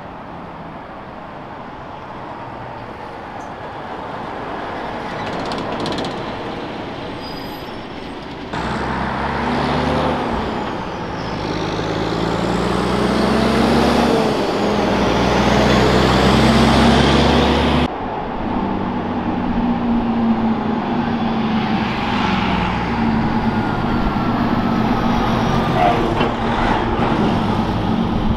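Heavy truck's diesel engine pulling through the gears in street traffic, its note climbing and dropping at each shift. It gets much louder about eight seconds in and drops off abruptly about eighteen seconds in, with engine sound carrying on afterwards.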